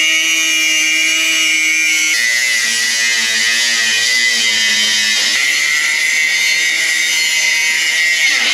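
Angle grinder with a cutting disc slicing through a steel bench frame: a loud, steady high-pitched whine with a hiss of sparks. The pitch drops about two seconds in as the disc bites into the metal.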